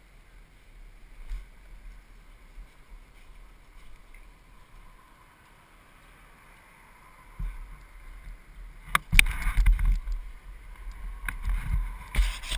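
Faint street ambience, then from about seven seconds in loud, irregular rubbing and knocking right on the microphone: handling noise from a helmet-mounted action camera being moved about, with a few sharp clicks.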